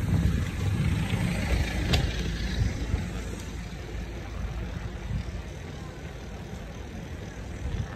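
Wind buffeting the microphone of a phone tied to a moving bicycle, with low rumble and rattle from the wheels on the road, and a sharp click about two seconds in.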